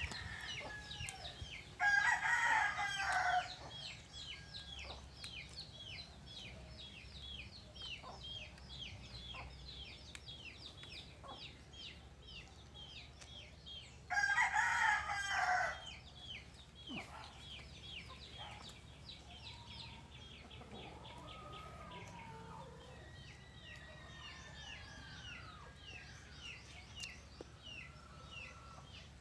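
Rooster crowing twice, once about two seconds in and again about fourteen seconds in, each crow lasting under two seconds. Underneath runs a steady fast series of high chirps.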